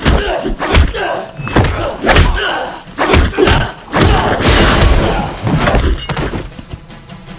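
Dubbed fight sound effects: a rapid, uneven string of punch and kick impacts with short grunts of effort, and a longer rush of noise about four seconds in, before it quietens near the end.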